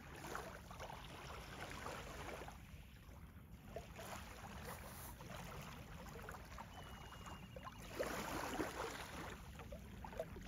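Faint small waves lapping at a lakeshore, an uneven soft splashing and trickling.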